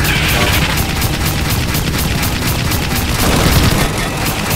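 Rapid automatic gunfire, a fast even string of shots over a heavy low rumble.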